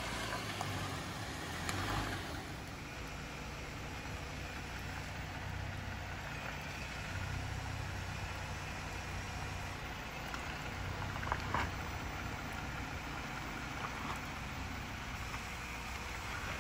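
2021 Jeep Gladiator Willys pickup crawling slowly over a gravel trail, its engine running low and steady near idle. Short sharp knocks come about two seconds in and again around eleven seconds.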